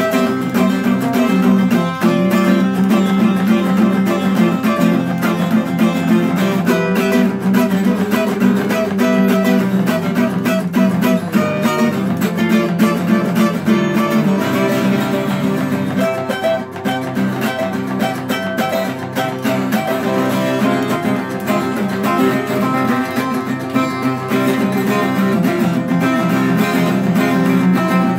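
Acoustic guitar played solo, strummed in a steady rhythm with picked notes, dipping briefly in loudness about halfway through.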